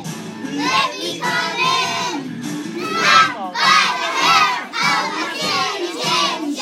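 A group of preschool children chanting loudly together, shouting out the words of their rhyme.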